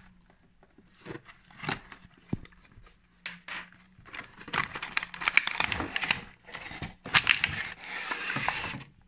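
Cardboard product box handled and opened by hand: a few light picks and scrapes as the seal sticker is worked loose and the flap opened, then from about four seconds in a dense run of scraping and rustling of cardboard and packaging as the contents are pulled out.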